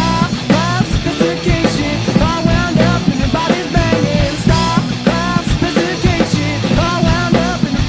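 Alternative rock song with a band playing: drum kit, bass and guitars, and a lead line that bends up and down in pitch over the top.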